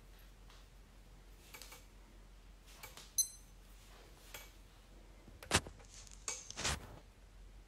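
A few small clicks and knocks in a quiet small room: one about three seconds in with a brief high clink, a sharper knock about halfway through, and a short cluster of taps soon after.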